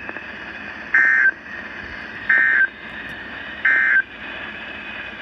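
Emergency Alert System SAME data signal: three short bursts of buzzy digital tones, about a second and a half apart, the End of Message code that closes a warning broadcast. Steady radio hiss runs underneath.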